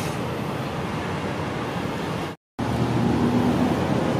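Wind and traffic noise, broken off abruptly a little past halfway by a moment of silence. After it comes the steady low hum of a diesel railcar's engine idling while the railcar stands still.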